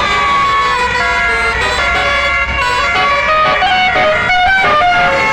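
Bus 'telolet basuri' musical horn playing a tune: several horn tones sounding together, stepping up and down in pitch note by note.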